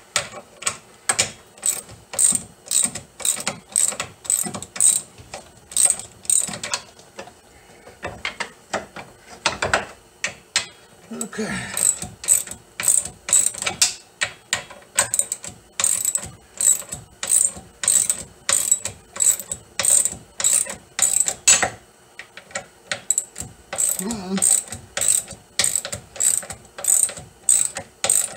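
Hand ratchet clicking with each back-swing as it backs out a front shock's mounting bolts, about two strokes a second, with two short pauses.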